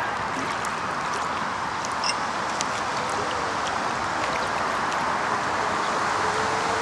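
Radio-controlled racing boats running at speed, their small engines giving a distant, steady buzz, with a faint wavering whine coming in about halfway through.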